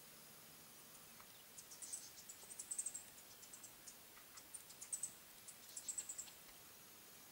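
A small bird calling faintly: two bouts of quick, very high-pitched chips and twitters, about two seconds in and again about five seconds in.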